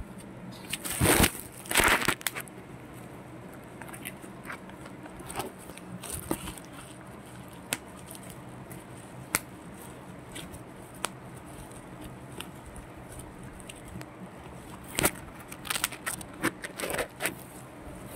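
Bubble wrap and a cardboard box crinkling and crackling as a cat shifts and grooms inside the box. There are two loud spells, about a second in and near the end, with scattered light clicks between.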